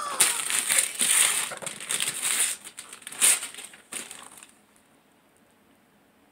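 Gift wrapping paper being torn and crumpled, with a sharp loud crackle about three seconds in. The rustling stops at about four and a half seconds and only faint room noise is left.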